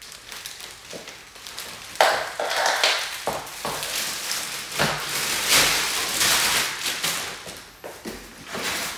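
Plastic wrapping and cardboard packaging rustling and crinkling while steel desk-frame parts are handled, with scattered knocks and taps. The rustling starts suddenly about two seconds in and dies down shortly before the end.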